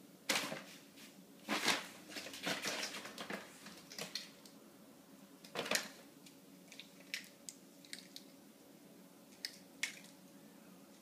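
Thin plastic wrapper from a bottled-water multipack crinkling and rustling as a cat bats at it and pushes its head inside, in irregular bursts that are loudest in the first few seconds and again near six seconds, then a few lighter crackles.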